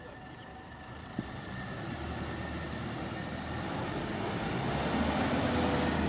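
BOYO self-propelled corn combine harvester running as it drives along the road, getting steadily louder as it comes close and passes near the end. A single short click about a second in.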